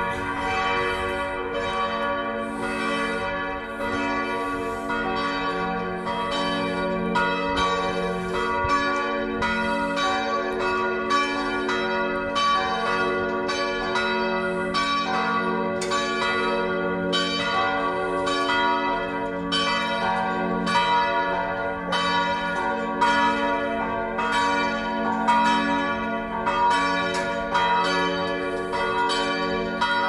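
Felsenkirche's church bells ringing continuously, a steady run of strokes about one to two a second with the tones of each stroke ringing on and overlapping.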